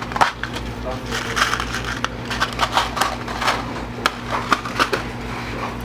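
Irregular crackling and small clicks from handling the crimping tool and small copper crimps, over a steady low hum.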